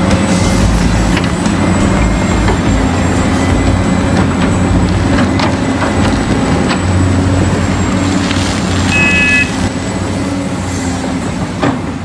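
Radio-controlled hydraulic excavator working: its pump and motor give a steady mechanical hum with a thin high whine over it. There are scattered clicks and knocks, and a short beep about nine seconds in; the noise eases off near the end.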